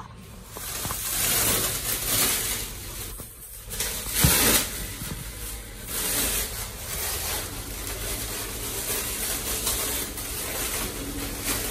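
Plastic packaging wrap being pulled and unwound by hand from newly delivered kitchen units, a continuous rustling and crinkling that swells and dips, with a louder moment about four seconds in.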